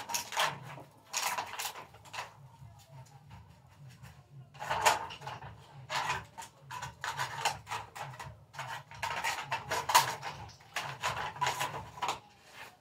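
Clattering and knocking of recyclable scrap being picked up and dropped by hand, in irregular bursts of clicks and rattles every second or two.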